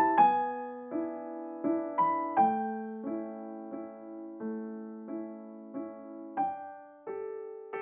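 Slow, gentle piano music: notes and soft chords struck a little more than once a second, each left to ring and fade.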